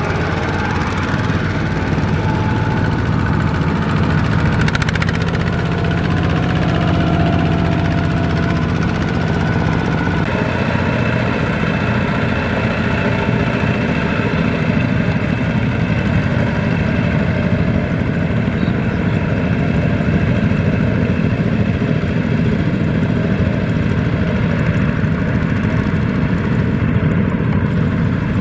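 Several two-wheel tractors' single-cylinder diesel engines (Kubota RT-series) running together as the tractors haul trailers through deep mud. The engine sound shifts in character about ten seconds in.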